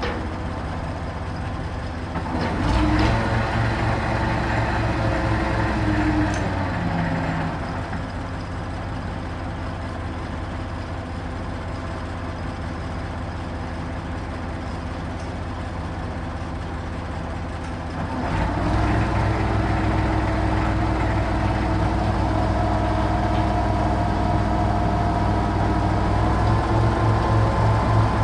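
Truck crane's engine running, speeding up and louder from about two and a half seconds to seven seconds, dropping back to idle, then speeding up again from about eighteen seconds on while the crane unloads concrete blocks.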